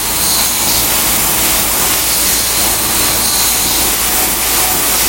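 Automatic ampoule washing machine running, with a loud steady hiss of spraying jets over a low machine hum.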